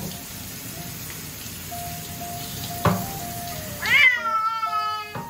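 Scottish Fold cat giving one long, loud yowl about four seconds in that starts high, falls in pitch and holds, over the steady hiss of a hand shower spraying water on it. A short knock sounds about a second before the yowl.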